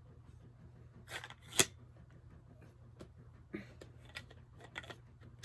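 Scattered clicks and knocks from handling the telescoping handle of an O-Cedar EasyWring spin mop as its length adjustment is worked, with one sharp, loud click about a second and a half in, over a low steady hum.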